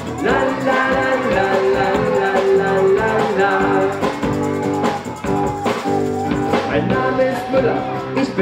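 Live band music: strummed acoustic guitar, acoustic bass guitar and a drum kit playing a song, with some singing.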